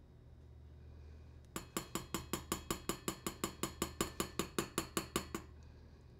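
A metal mesh strainer knocked rapidly against the rim of a saucepan, about five metallic taps a second for roughly four seconds, to shake the last of a sauce through the mesh. The taps start about a second and a half in and stop shortly before the end.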